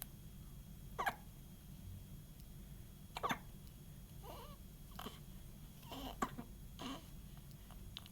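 A baby hiccupping: a string of short, separate hiccups at uneven intervals, about six in all.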